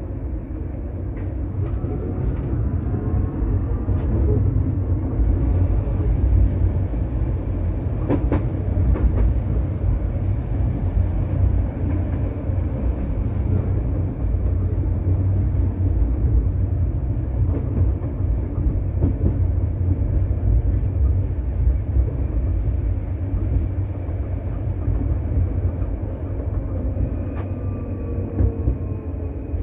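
KTM-23 tram running along the line, heard from inside the car: a steady low rumble of the wheels on the rails. A faint whine rises in pitch in the first few seconds and another falls near the end, with a sharp clatter about eight seconds in.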